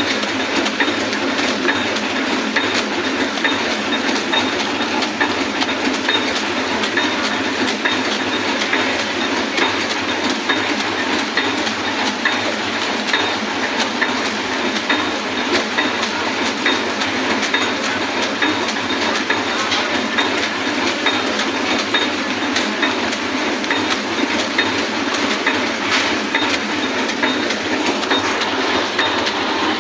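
Industrial pillow-pack (flow-wrap) machine running steadily: a continuous mechanical clatter with many small clicks as it wraps and cuts packs.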